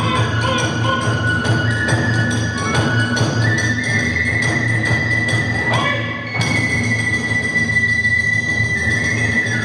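Kagura festival music: drums and hand cymbals beating a steady, fast rhythm under a bamboo flute melody that climbs and then holds one long high note.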